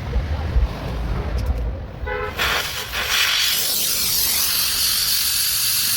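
Gas welding torch hissing steadily, setting in sharply about two seconds in just after a brief pitched toot; a low rumble comes before it.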